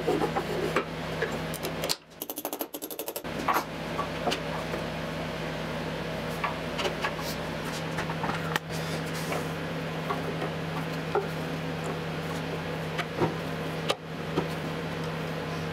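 Light clicks and knocks of a metal rod, bearing and rigid coupling being handled and fitted, over a steady low hum. The sound drops out briefly about two seconds in.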